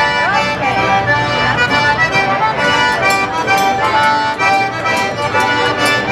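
Acoustic street band playing a lively tune, led by piano accordion and fiddles over upright bass and strummed guitar, with a triangle struck on the beat.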